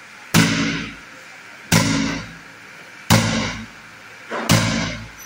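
A long white Indus PVC pipe slammed against a concrete floor four times, about once every 1.4 s, in a strength test. Each blow is a sharp crack followed by a short hollow ring from the pipe.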